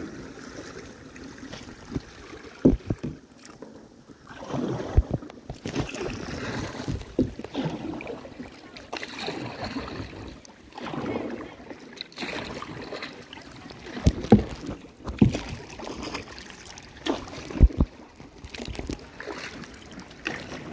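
Kayak paddle strokes: the blades dip and swish through the water in repeated strokes every second or two, with a few sharp thumps in between.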